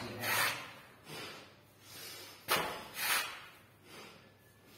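A man breathing hard and noisily through the nose in short, quick breaths, roughly in pairs, with the effort of pulling both knees to his chest in a yoga exercise. The breaths come louder at the start and again about two and a half seconds in, fading between.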